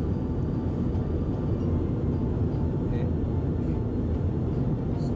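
Steady low rumble of road and engine noise heard inside the cabin of a Toyota Voxy minivan on the move.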